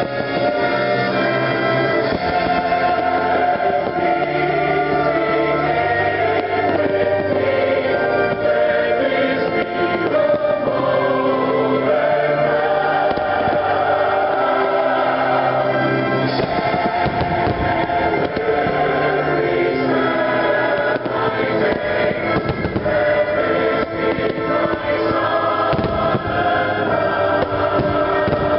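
Fireworks show soundtrack, orchestral music with a choir, playing loudly, with fireworks shells bursting over it, more of them in the second half.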